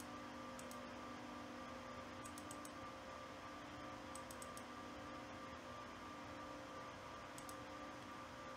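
Computer mouse clicking in quick pairs and triplets, four times, over a faint steady hum.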